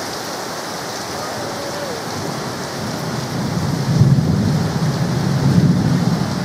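Heavy rain falling with a steady hiss, and a low rolling rumble of thunder that builds about three seconds in, swells twice and eases off near the end.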